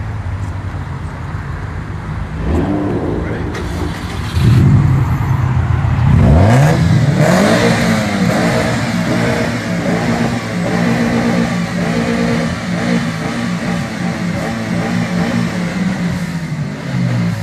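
Car engine revving: the pitch climbs a couple of times early on, rises sharply about six seconds in, then holds at high revs with a steady note before dropping near the end.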